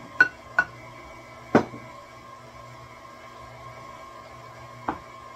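Four sharp knocks of a measuring cup against mixing bowls while shredded zucchini is scooped and tipped in, the first two with a brief ring and the loudest about a second and a half in, over a steady electric hum.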